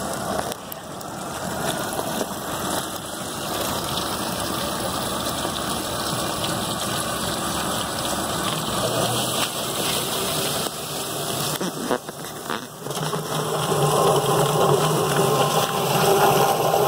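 Yardbird drum poultry plucker running: its motor spins the rubber-fingered plate while a hose sprays water into the drum, a steady rushing, whirring noise. It grows louder in the last few seconds.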